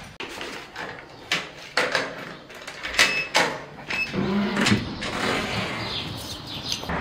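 Footsteps clicking on a hard tiled floor, then the metallic clack of a building's electric-locked entrance door being opened, with a brief low squeak as the metal door swings.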